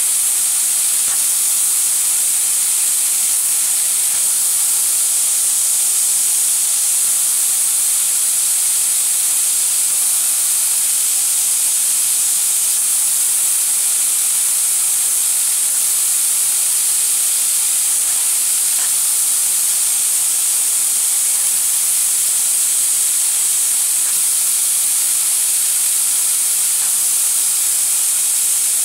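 Fiber laser cutting machine cutting silver sheet, its assist-gas jet at the cutting head giving a loud, steady high hiss.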